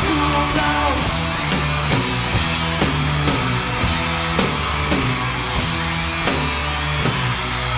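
Live heavy metal band playing an instrumental passage: distorted electric guitar and bass over a drum kit, with drum hits about twice a second and a cymbal crash at the start.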